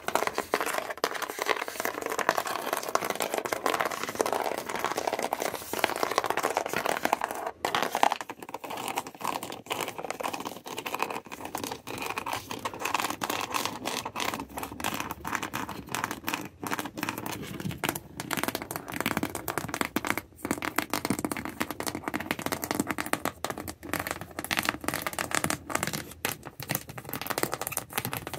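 Backs of fingernails scratching and tapping quickly on an object, a dense run of small crackly clicks. About eight seconds in there is a brief break, and the sound then turns lower in pitch.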